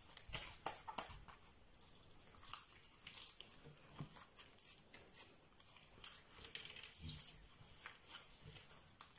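Clear slime being squeezed and kneaded by hand, giving off faint, irregular clicks and squishes as air pockets pop.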